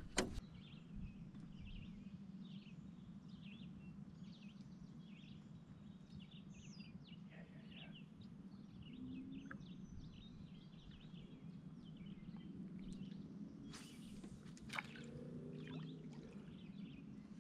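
Faint outdoor ambience: birds chirping with many short, scattered calls over a low steady background noise, and two brief knocks near the end.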